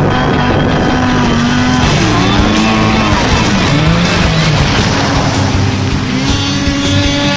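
Snowmobile engine running hard at high revs as the sled skims across open water, its pitch rising and falling as it passes close by.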